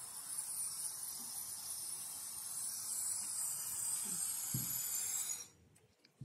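Air hissing out of a deflating balloon through the open pop-up bottle cap of a homemade CD hovercraft, escaping under the disc as its cushion of air. The high, steady hiss dies away about five and a half seconds in as the balloon empties.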